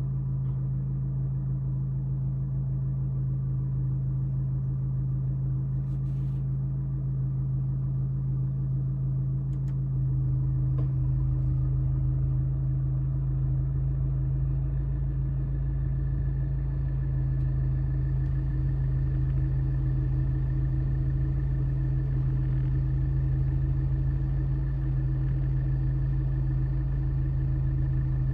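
Abarth 595's 1.4-litre turbocharged four-cylinder idling steadily with the air conditioning running: a steady low hum and rumble. This is the air-conditioning load that sets the steering wheel vibrating. About ten seconds in, the low rumble grows slightly louder.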